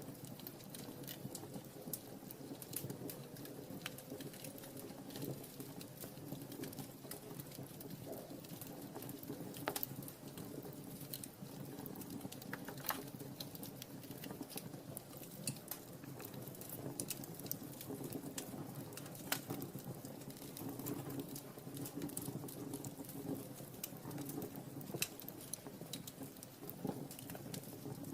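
Wood fire burning in a fireplace: irregular crackles and small pops over a steady low rush of flame.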